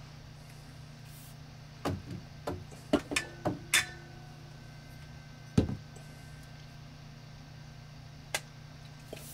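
Copper pipe and brass SharkBite push-fit fittings being handled and knocked together: a quick run of knocks and clinks from about two to four seconds in, some leaving a short metallic ring, then one heavier knock a little past halfway and a single light click near the end.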